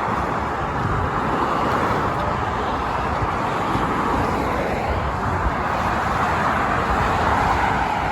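Steady roar of motorway traffic, mostly tyre noise, swelling and easing slightly as vehicles pass.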